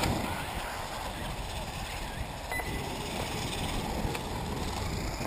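Wind rumbling on the microphone over the faint running of electric 1/8-scale RC buggies on a dirt track, with a few light clicks.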